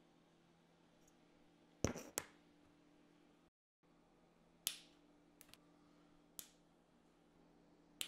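A small toggle switch on a battery lead flicked, two sharp clicks close together, then flush cutters snipping the wire leads of LEDs: a few sharp single snips spread a second or more apart.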